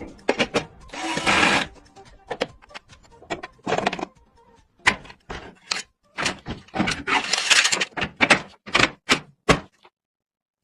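Handling noise from PC hardware and packaging: a run of short clicks, knocks and rustles that stops about a second before the end.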